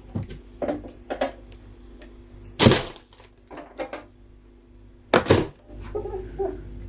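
Handling noise: a few sharp knocks and clatters of items being picked up and set down, two louder ones about two and a half and five seconds in.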